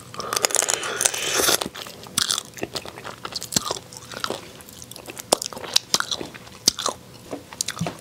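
Close-up eating of spicy seasoned raw crab: biting, sucking and crunching the shell held to the mouth, then chewing, with scattered sharp clicks of shell and chopsticks.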